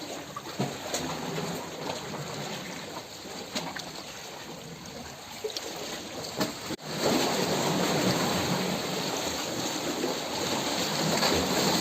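Steady rushing of running water. It cuts off abruptly about seven seconds in and comes back louder.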